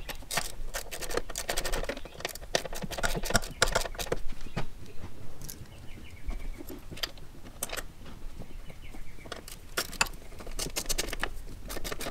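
Hand tools clicking and clinking on metal in short runs of rapid clicks, as the bolts holding the clutch cable firewall adjuster flange are driven in.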